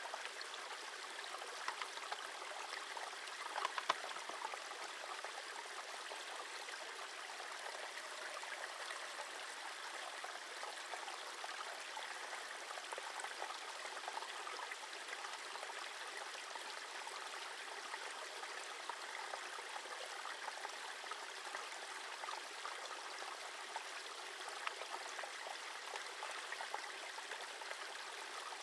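A small stream (a burn) flowing steadily with a continuous trickling, gurgling rush, with a few brief clicks about four seconds in.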